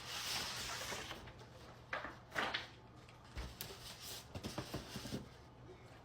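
A small craft blade scraping as it scores a board down the middle: one long scrape about a second long, then several shorter scraping strokes and light knocks.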